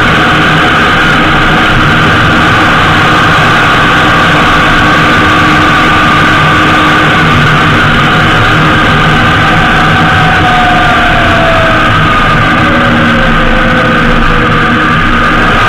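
Honda GL1800 Gold Wing motorcycle riding along, heard close to the front wheel: loud, steady wind and road noise over the engine's drone, with a few short shifts in pitch near the end.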